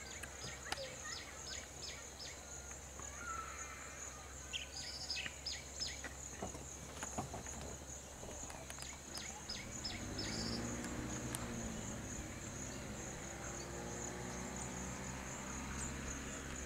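Steady high buzzing of an insect chorus, with a bird calling in quick runs of short falling whistled notes. About ten seconds in, a low vehicle engine hum comes in and carries on.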